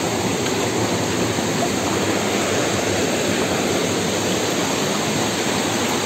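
Waterfall's falling water, a steady, even rush.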